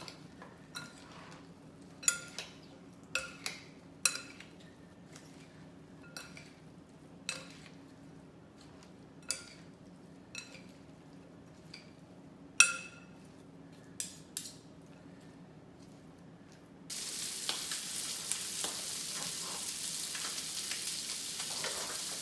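Scattered clinks of utensils against dishes, then about seventeen seconds in a loud steady sizzle starts suddenly as the seasoned salmon goes into hot oil and begins frying.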